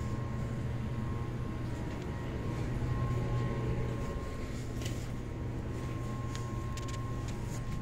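A steady low machine hum with a faint high whine over it, and a few light knocks and rustles about five seconds in.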